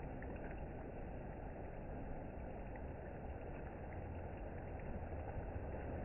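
Water running down a children's tube slide and splashing into the pool: a steady, even rush.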